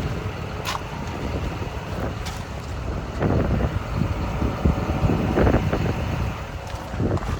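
Wind buffeting the microphone, an uneven low rumble that rises and falls in gusts, with a few faint clicks.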